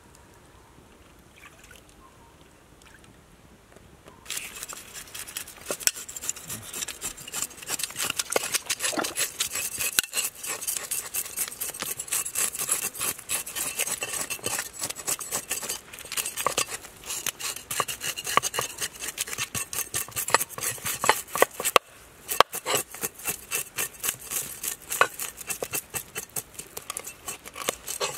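Knife scraping the scales off a whole Boesemania fish on a wooden chopping block: rapid scratchy strokes that start about four seconds in, after a quiet stretch, and run on with one short pause near the end.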